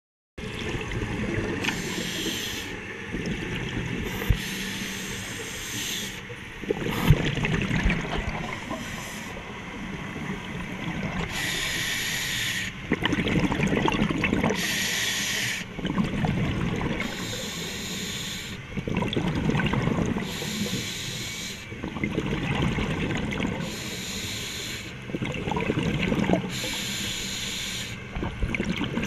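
Scuba diver breathing through a regulator underwater, starting about half a second in: hissing inhalations alternate with rumbling bursts of exhaled bubbles, about one breath every three to four seconds.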